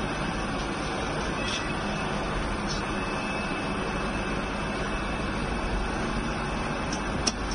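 Steady machinery noise of a factory floor, with a few faint clicks and a sharper click near the end.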